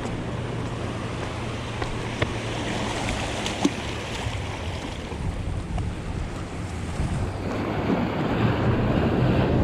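Sea waves washing against shoreline rocks, with wind buffeting the microphone. The surge swells louder over the last couple of seconds, and there are a couple of small clicks.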